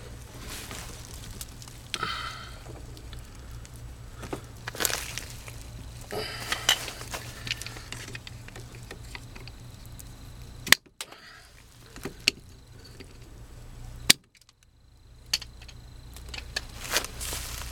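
Scattered knocks, scrapes and clinks of hand work on plumbing in the crawlspace under a mobile home, over a steady low hum. Twice the hum drops out for a few seconds, each time with a sharp click at its start.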